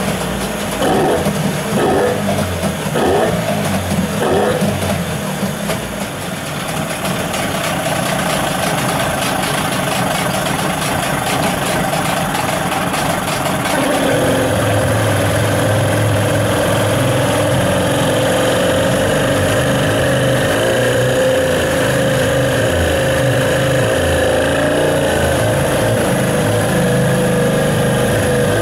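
CG Marine 9.9 hp MAX outboard engine running cold, surging unevenly for the first few seconds, then settling into a steadier, slightly louder run about 14 seconds in. The uneven running is what the owner says any uprated engine does when cold, until it warms up.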